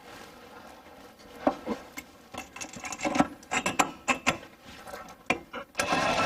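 Scattered clicks, knocks and rubbing as long screws and the diesel heater's fuel pump are handled and set in place against the wooden floor, then a power drill starts running steadily near the end, driving a screw in.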